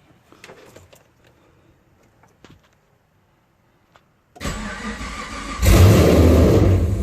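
A few faint clicks, then the 2010 Camaro SS's 6.2-litre V8 cranking on the starter for about a second before it catches and revs loudly. The engine starts hard after being installed.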